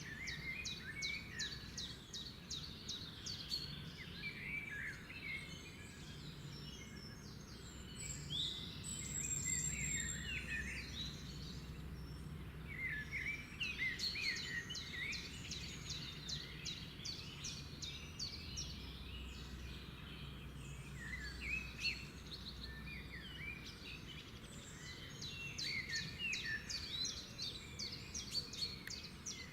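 Songbirds singing outdoors in recurring bursts every few seconds. Rapid runs of high, quick-repeated notes mix with lower warbling phrases over a steady low background rumble.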